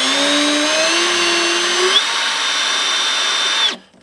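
Power drill running as it drills out a rivet holding a truck's window regulator in the door, its motor whine rising in pitch over the first two seconds, then holding steady before stopping sharply near the end.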